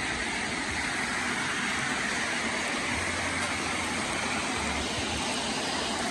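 Steady rain falling on grass and leaves: an even, unbroken hiss.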